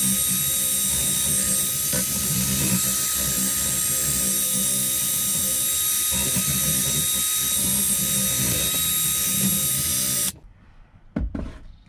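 An 18 V cordless drill spinning a polishing ball against an aluminium bicycle pedal body, running at a steady speed with a steady whine, then stopping suddenly about ten seconds in. A single knock follows about a second later.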